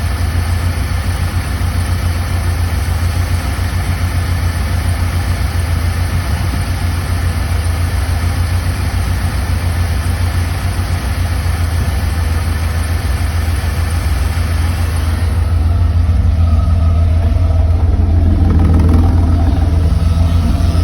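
Mercedes-Benz W124 300E-24 running, with a steady low drone from its fuel pump system; one of the electric fuel pumps has failed and is making strange noises as it runs. About 15 seconds in the higher hiss drops away and the low drone grows slightly louder.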